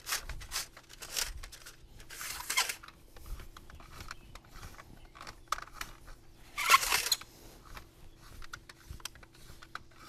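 Steel fish tape being fed off its reel and pushed into conduit: irregular scraping and small clicks, with two louder rasping bursts about two and seven seconds in.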